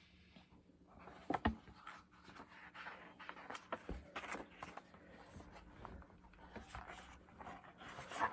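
Picture book being handled and its page turned: faint paper rustling with a couple of soft knocks, about a second in and around four seconds in.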